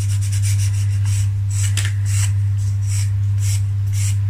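Sanding stick rasping back and forth over the balsa wood tail of a laser-cut model aeroplane, in even strokes about two a second. A steady low hum runs underneath.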